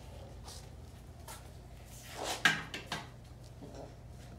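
A sharp knock about halfway through, followed by a smaller click, over faint rustling and a low steady hum.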